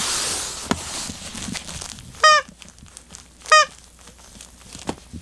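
Pet cat giving two short, high meows a little over a second apart, after a rustling noise at the start.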